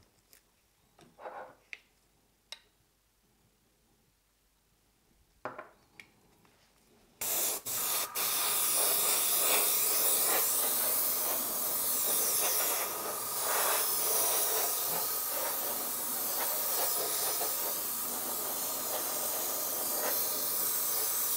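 Airbrush spraying: after a few soft clicks, a steady hiss of compressed air starts about seven seconds in, stutters twice as the trigger is first worked, then runs on evenly.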